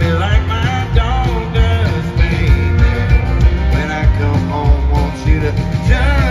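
A live country band plays with sung vocals: acoustic guitar, bass and keyboards over a steady drum beat, heard through a concert sound system.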